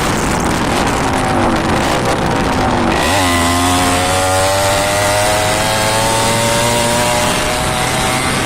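Yamaha RX 100's two-stroke single-cylinder engine running. About three seconds in the sound changes abruptly to a steadier, clearer engine note whose pitch slowly falls.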